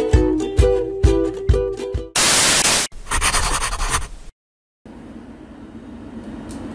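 Upbeat plucked-string intro music with a steady beat, cut off about two seconds in by a loud hiss and then a rasping noise effect. After a brief silence there is a faint, steady kitchen background with a low hum.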